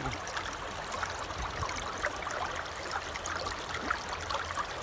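Steady rush of river water flowing through a gold-prospecting sluice box, over its ramp and riffle mat.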